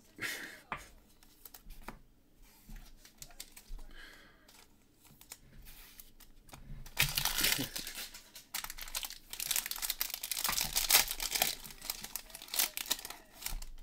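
A Prizm football card pack's foil wrapper being torn open and crinkled in the hands: a few light handling clicks at first, then loud, dense rustling from about seven seconds in until just before the end.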